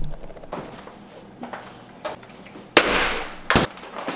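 Sharp knocks and bangs of objects being set down on a kitchen counter: faint knocks early on, then two loud bangs close together about three seconds in, each with a short hissing tail.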